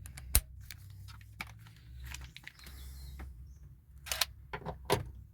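Scattered clicks and knocks of a socket wrench with a T50 Torx bit working a seatbelt anchor bolt loose. The sharpest click comes about half a second in, with a few more near the end.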